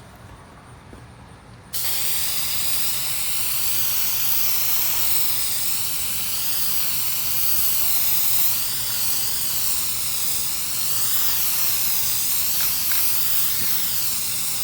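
Paint or finish being sprayed: a steady hiss that starts abruptly about two seconds in and holds without a break, wavering slightly as the spray is moved.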